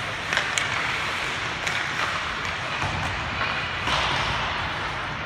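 Ice hockey play: skate blades scraping and hissing on the ice, with several sharp knocks of sticks, puck and boards.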